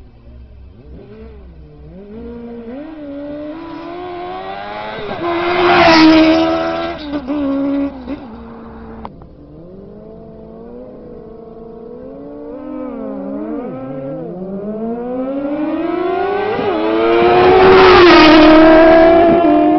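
Sport motorcycles accelerating hard past at full throttle in a drag race. The engine pitch climbs and drops briefly at each gear change. The sound peaks as they go by, once about six seconds in and again near the end, when two bikes pass side by side, and the pitch falls away after each pass.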